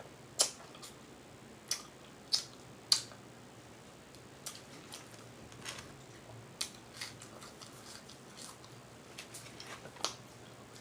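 Close-up mouth sounds of eating: sharp, wet smacking clicks while chewing, the loudest three in the first three seconds and fainter ones scattered after.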